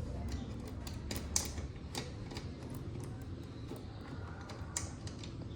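Scattered light metallic clicks and clinks from handling a just-loosened motorcycle seat bolt and hand tools, irregular, with the sharpest click about a second and a half in and another near the end.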